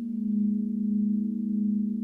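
Crystal singing bowls ringing: a steady low tone with a few fainter higher tones above it, swelling and easing gently in loudness.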